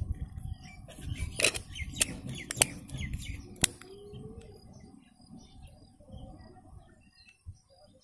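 Plastic back cover of a Tambo A1810 keypad phone being pressed and snapped into place, a few sharp clicks in the first four seconds. Birds chirp faintly in the background.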